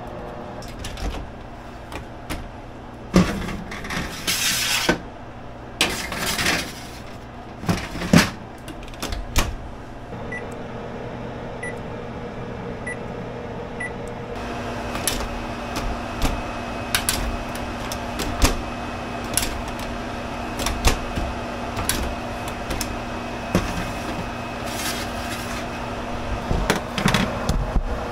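Metal baking pan knocking and scraping on a glass-top range, then four short electronic beeps about a second apart from a GE Adora oven's keypad as bake temperature and timer are set. A steady oven hum follows, with more knocks of the pan near the end.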